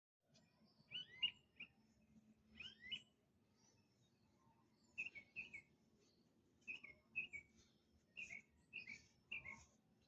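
A bird calling in short phrases of two or three sharp chirps, repeated every second or two over a faint background.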